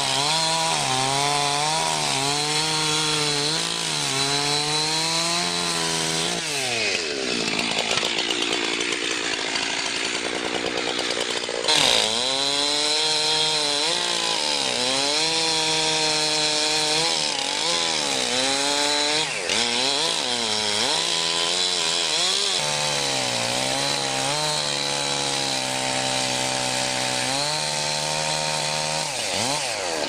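Gasoline chainsaw crosscutting through a redwood log, the engine note rising and falling as the chain bogs down in the cut and picks up again. A sharp knock about twelve seconds in, and the revs drop away near the end as the end slab is cut free.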